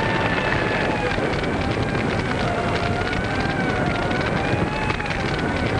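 Fire-engine siren holding a steady, gently wavering pitch over the dense rushing and crackling of a large fire.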